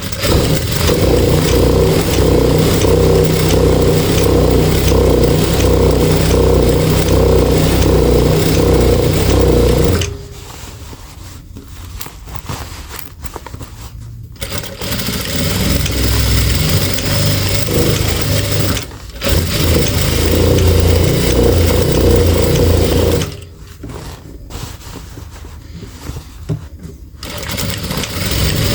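Sewing machine stitching in long steady runs as it darns worn denim, stopping twice for several seconds and pausing briefly between.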